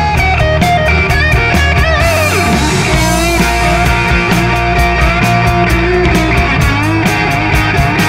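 Rock band playing: electric guitar lead with bent, gliding notes over bass guitar and drums, a cymbal keeping a steady beat.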